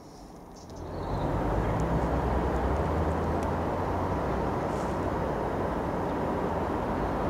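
Steady low outdoor rumble that fades in over about the first second and then holds even.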